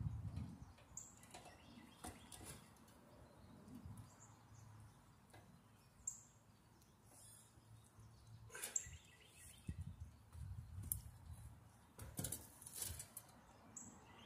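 Faint, scattered small clicks and scrapes of a copper pipe and cord being worked by hand at the base of a dishwasher, with a few short, high bird chirps.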